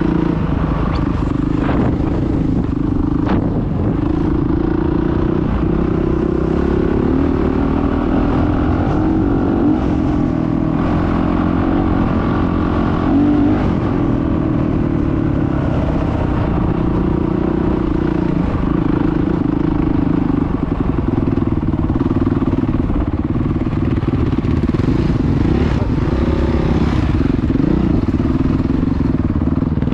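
Dirt bike engine running steadily at moderate revs while riding a rough gravel track, heard close up from the bike.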